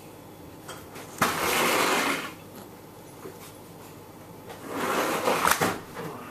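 Two bursts of close rustling or rubbing noise, each about a second long: the first starts suddenly about a second in, the second builds up near the middle and ends in a few sharp clicks.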